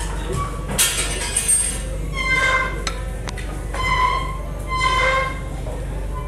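Steel spoon scraping and clinking against a clay pot and a ceramic plate as biryani is served, with a sharp clink about a second in, over background music with a few held notes.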